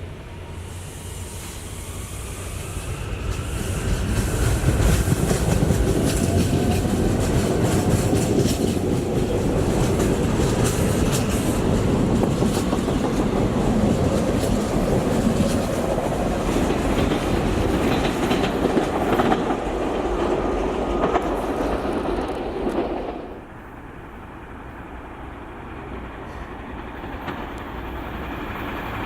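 SEPTA Regional Rail electric passenger train passing at speed, its wheels clicking over rail joints. The sound builds over the first few seconds, stays loud for close to twenty seconds, then drops away abruptly as the train clears, and a lower rumble starts to build again near the end.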